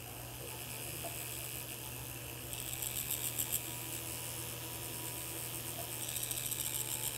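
Flex-shaft rotary handpiece running with a rubber abrasive wheel against a gold bezel, smoothing the metal around a sapphire without scratching the stone. A steady low hum under a gritty hiss that grows louder twice, about three seconds in and again near the end.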